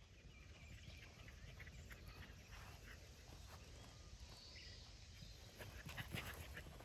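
Near silence: faint outdoor room tone with a scattering of small clicks and taps.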